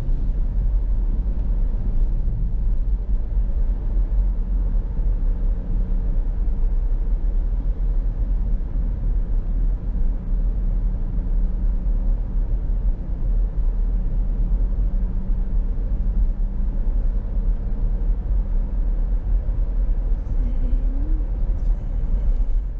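Steady low road and engine rumble of a moving car, heard from inside the cabin, with a faint engine hum that rises and fades now and then.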